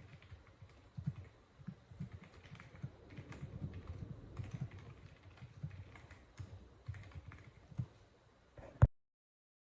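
Typing on a Womier SK71 gasket-mounted mechanical keyboard with pre-lubed linear switches: a quick, irregular run of keystrokes with a deep, muted thud to each. A sharp, louder click comes just before the sound cuts off near the end.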